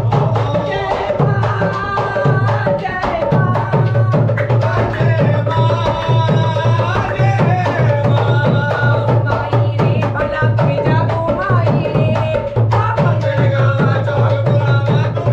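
Dholak hand drum beating a steady, fast folk dance rhythm, with a sustained melody line over the drumming.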